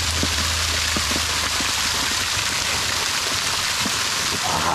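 Water gushing under its own pressure from a deep borewell, spraying out of a holed cap atop a tall pipe and falling onto the ground in a steady splashing rush like heavy rain.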